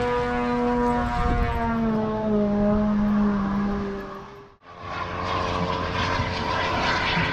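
A model aircraft engine running at a steady pitch that drops about a second in and keeps sliding lower. An abrupt cut about halfway through gives way to rougher, noisier model aircraft engine and propeller sound.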